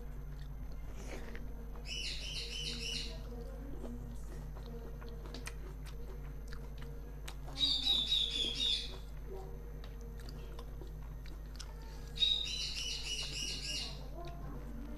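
A bird calling three times, each a rapid trill of repeated high notes lasting about a second, the middle one loudest. Underneath are faint chewing and the small wet clicks of rice being mixed by hand, over a steady low hum.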